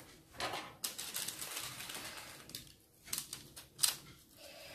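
Wooden spatula scraping and crunching under a slice of crisp-baked flatbread pizza on parchment paper, with crackling through the first half and a few sharp clicks near the end.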